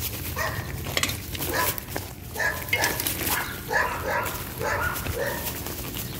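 A dog barking repeatedly, about a dozen short barks over some five seconds, stopping shortly before the end.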